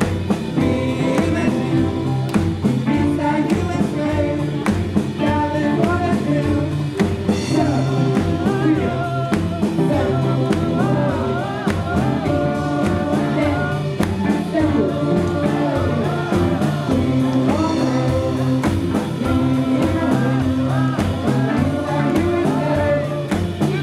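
A band playing with several voices singing together over a steady beat.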